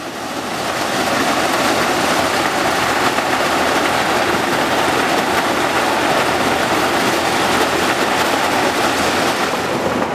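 Tractor-driven KISAN maize sheller-dehusker running under load as cobs are fed through it, a loud, steady, dense rushing machine noise over the tractor engine. It fades in over about the first second.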